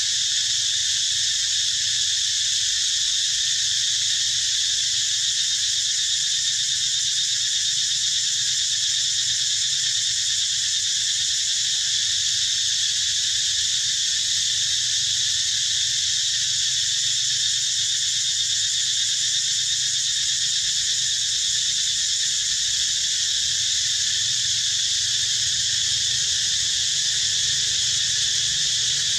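Loud, steady, high-pitched insect chorus.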